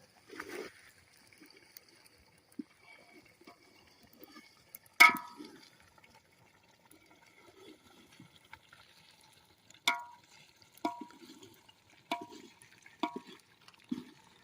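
Metal utensil clinking against a metal cooking pot, each clink short and ringing. One loud clink comes about five seconds in, then five quicker clinks follow near the end.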